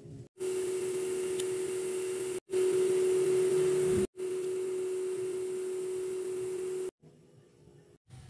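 A steady machine hum with a hiss over it, like a motor running. It comes in three stretches, each cut off abruptly, and the middle one is loudest.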